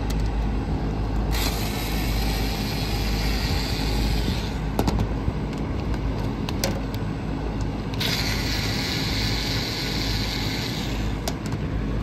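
Commercial package air-conditioning unit running with a steady low hum from its fans and compressors. Two stretches of hiss, each about three seconds long, start about a second in and about eight seconds in, and a few light clicks fall between them.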